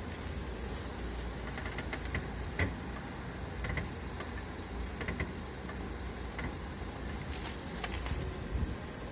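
Steering rack of an Audi A6 C7 (4G) squeaking: short, irregular creaks and clicks every second or so over a low steady car rumble, the sign of a faulty steering rack.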